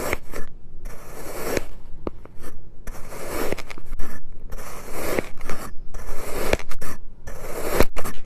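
Kinetic sand being cut and scraped with a blade: a series of gritty scraping strokes, about one a second, with a few sharp clicks between them.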